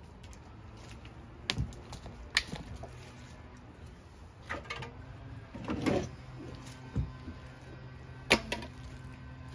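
Scraping and a handful of sharp knocks from a hand tool scooping wet, rotting leaves and muck off an old boat's floor, about six separate hits, with faint background music.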